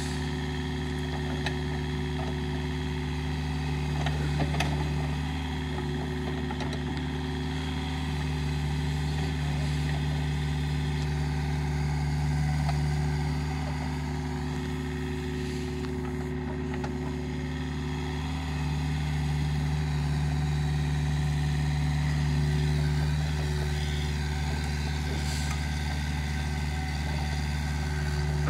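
Takeuchi TB153 mini excavator's diesel engine running steadily while it digs, the level swelling now and then as the hydraulics load it. A few light clicks about four seconds in.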